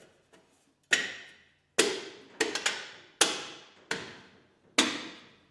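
Metal hubcap (a stock 1967 Mustang wheel cover) being knocked into place on the wheel: six sharp strikes at uneven intervals, each ringing briefly and fading.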